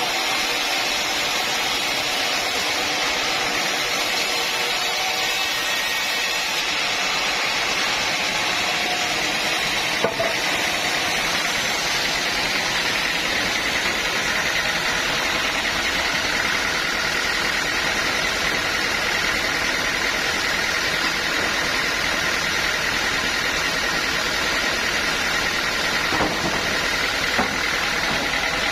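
Sawmill saw machinery running steadily, a continuous mechanical hum and hiss, with a sharp click about ten seconds in and a couple of light knocks near the end.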